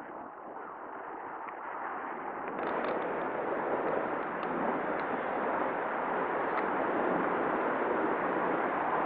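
Aircraft engine noise, a steady rushing sound that grows louder over the first three seconds as the aircraft approaches, then holds.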